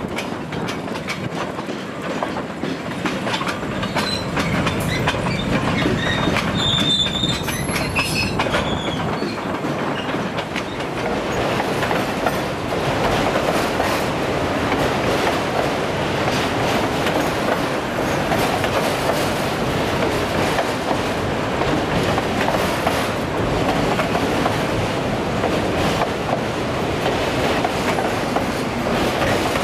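Freight train cars rolling past, steel wheels clacking over rail joints in a continuous rumble. A brief high wheel squeal comes a few seconds in.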